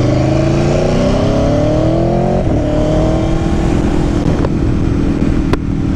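Aprilia Tuono V4 1100's V4 engine pulling hard, rising in pitch for about two and a half seconds, then a short break for an upshift and a steady engine note after it.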